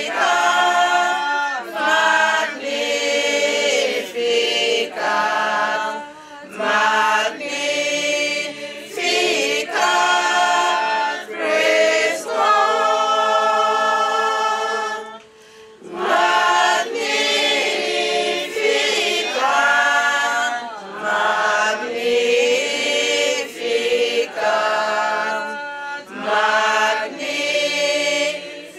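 A choir singing a hymn in long sung phrases, with a brief break just past the middle.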